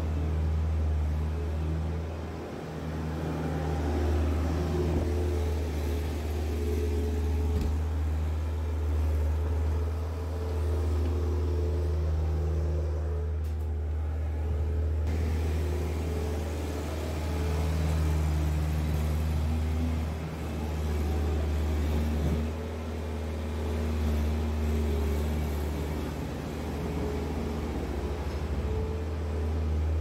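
Bobcat S150 skid-steer loader's diesel engine running steadily under load as the machine pushes straw bedding across a barn floor, its pitch rising and falling as it works.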